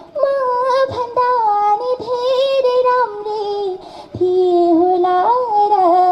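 A young female singer singing a Nepali adhunik song live into a handheld microphone. One voice holds long notes and bends them, with short breaks for breath about a second in and again about four seconds in.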